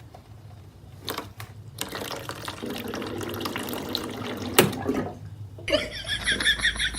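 Running water splashing, as from a tap into a sink, with a few sharp knocks, one loud one about four and a half seconds in. Near the end it stops and an animal's high, rapidly repeated chirping call begins.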